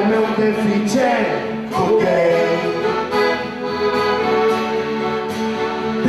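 Live folk music: an accordion holds sustained chords over strummed acoustic guitar, with voices singing.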